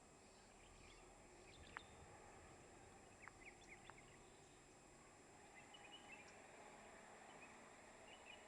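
Near silence: faint outdoor ambience with birds chirping now and then in the distance and a few faint ticks.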